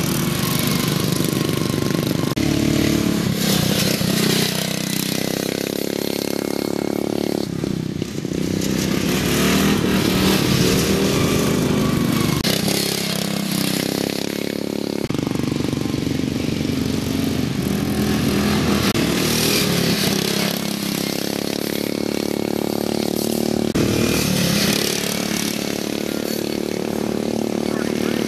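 Several racing riding lawn mowers running hard together, their small engines rising and falling in pitch as they speed up, pass and slow for the turns.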